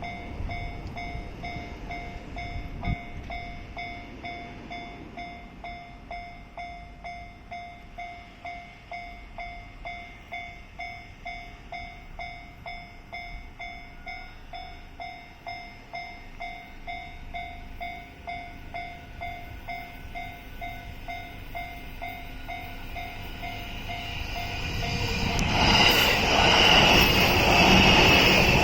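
Japanese level-crossing warning bell dinging in a steady, regular rhythm, a little over once a second. Near the end an E235 series 1000 electric train arrives and passes over the crossing, its loud running noise swelling over the bell.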